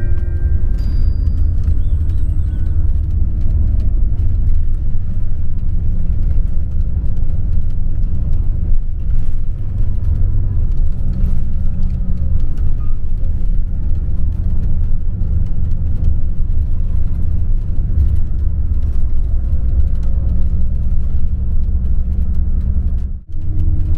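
Steady low rumble of a coach's engine and road noise, heard from inside the moving bus. The level dips briefly for a moment near the end.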